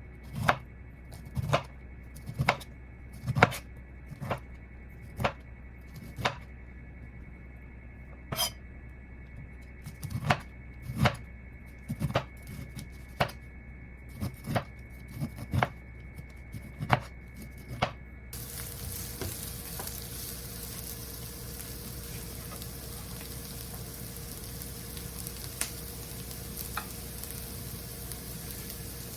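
A knife chopping on a cutting board in slow separate strokes, about one a second, then after about 18 seconds a steady sizzle of food frying in a pan.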